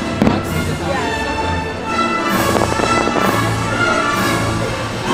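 Orchestral fireworks-show music playing, with firework shells going off over it. One sharp bang comes just after the start, and fainter pops follow later.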